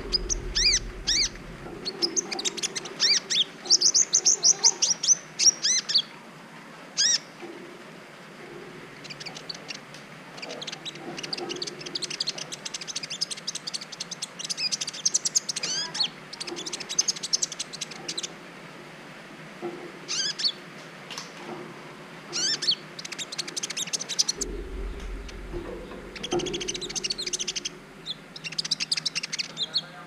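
Kolibri ninja sunbird singing: quick, high chirps and trills in repeated short phrases with brief pauses between them.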